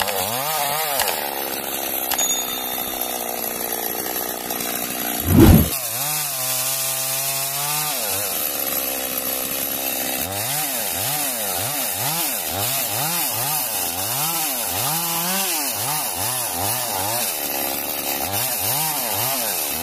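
Two-stroke chainsaw cutting through a felled tree trunk, its engine pitch rising and falling over and over as the chain works through the wood. One loud thump about five seconds in.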